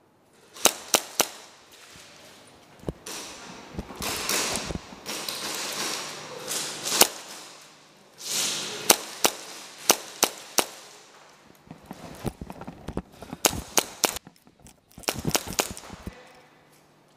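Airsoft guns firing indoors: sharp single pops and quick strings of shots with short pauses between, starting with three quick shots about a second in and ending in a dense cluster of shots near the end.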